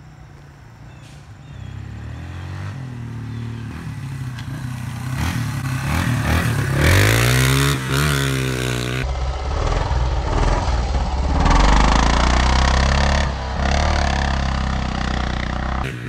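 An off-road vehicle's engine coming closer and revving hard as it drives through mud. The pitch climbs steeply about seven seconds in, then gives way to loud engine running mixed with a rushing noise of spinning tyres and thrown mud.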